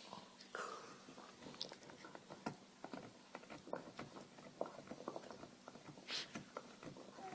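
A dog gnawing and chewing on a bone: irregular small clicks and crunches of teeth on it.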